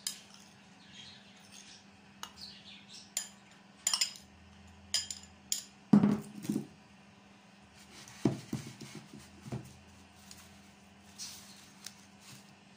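Metal spoon clinking and scraping against ceramic bowls as grated cheese is scraped out and spread over the salad: sharp, irregular clinks, with a few louder, duller knocks about halfway through.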